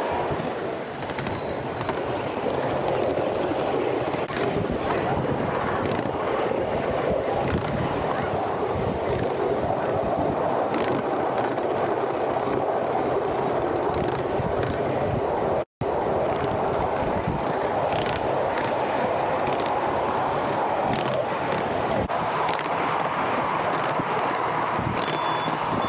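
Miniature ride-on train running along its track with a steady rumble, with clicks from the wheels on the rails. The sound cuts out for an instant about halfway through, and a short run of high, repeated beeps comes near the end.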